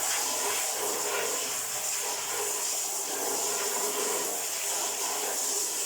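Running water hissing steadily as a vacuum cleaner's sponge filter is rinsed and rubbed by hand.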